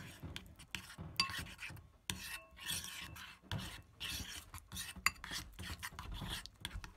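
Metal spoon stirring and scraping thick glue-and-laundry-detergent slime around a bowl, in repeated short scraping strokes about two or three a second. The mix is still wet and sticky, not yet pulling away from the sides of the bowl.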